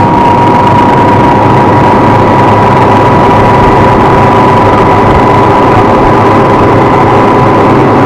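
Motor cutter's engine running steadily under way, loud over a dense rush of noise, with a thin steady whine that rises very slightly in pitch.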